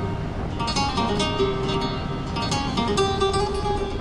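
Background music: plucked acoustic guitar in a flamenco style, a quick run of picked notes over held tones.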